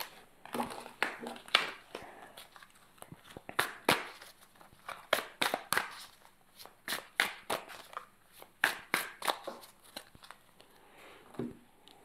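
A deck of oracle cards being shuffled by hand, the cards snapping against each other in many quick, irregular clicks.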